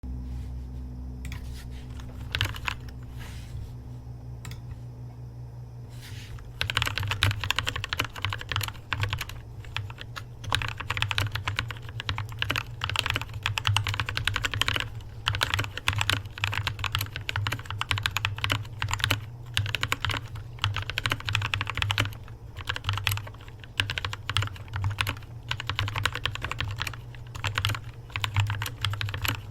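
Lubed mechanical keyboard with a creamy sound: a few single keystrokes, then fast continuous typing from about six seconds in.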